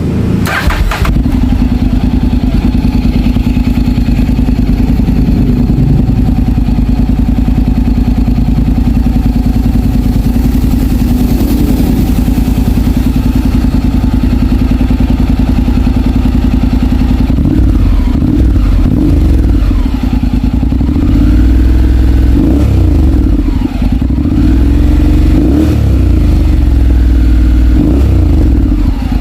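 Honda X-ADV 750 parallel-twin engine through a Yoshimura aftermarket exhaust, idling steadily, then revved up and down in repeated blips over the second half.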